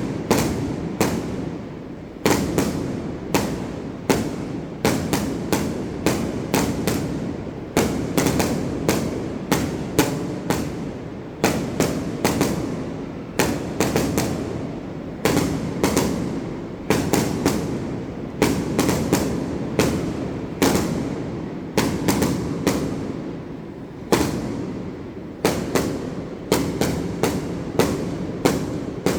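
Fireworks bursting in irregular succession, sometimes several bangs a second, each followed by a rolling, fading echo.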